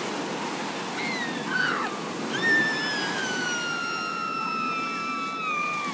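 Ocean surf washing onto the beach. Over it, a short high tone falls away about a second in, then a long, high, slowly falling tone starts about two seconds in and holds almost to the end.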